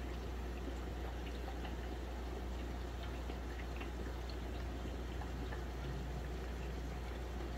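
Aquarium water running: a steady trickle and bubbling with scattered small drips over a constant low hum.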